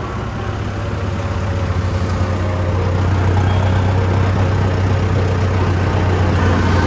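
Mahindra Arjun Novo 605 tractor's four-cylinder diesel engine running as the tractor drives along the road, heard from the driver's seat as a steady low drone. It grows louder over the first few seconds, then holds level.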